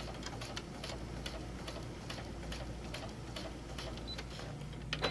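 Domestic sewing machine stitching slowly and steadily, each needle stroke a light tick, about three to four a second, with a louder click near the end.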